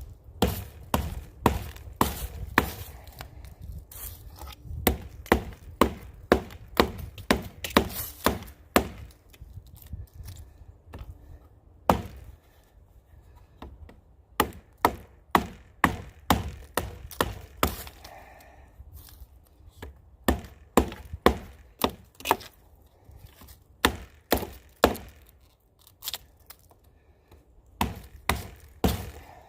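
A wooden baton striking the spine of a pocket knife, driving the blade into a dead standing tree to chop out small wedges. The sharp knocks come about two a second, in runs broken by short pauses.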